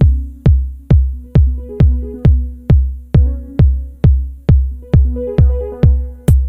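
Electronic dance music: a steady kick drum at about two beats a second under a simple synth line, with hi-hats coming back in near the end.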